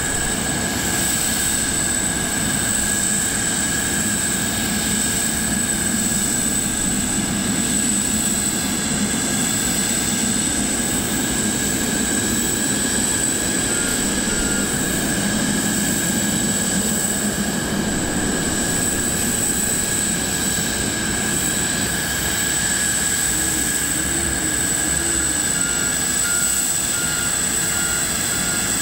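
Steady high-pitched whine of a parked cargo jet and its ground equipment on the airport apron. Short repeated warning beeps come briefly about halfway through and again near the end, as the cargo loader moves the pallet.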